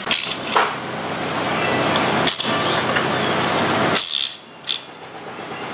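Metal clinks and knocks of engine parts and hand tools being handled on a steel bench, with a dense clatter that stops abruptly about four seconds in.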